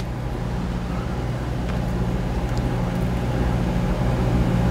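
A steady low mechanical hum that slowly grows louder, with a few faint small clicks.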